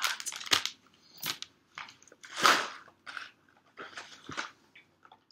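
Plastic snack packet of coated peanuts being pulled open by hand: a few irregular crinkling, rustling crackles, the loudest about halfway through.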